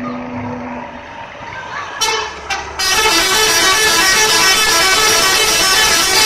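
Busy road traffic with vehicle horns honking. It grows much louder and denser about three seconds in, after a couple of sharp knocks.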